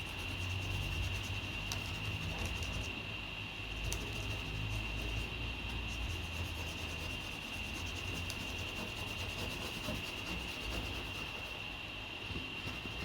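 Pencil rubbed back and forth over brown paper pressed onto a pressed-steel parcel shelf, taking a rubbing of the panel's shape, a continuous scratchy scraping. A steady faint high whine runs underneath.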